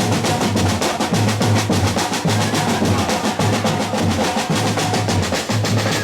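Percussion-heavy music: fast, even drumming with a repeating low bass pulse.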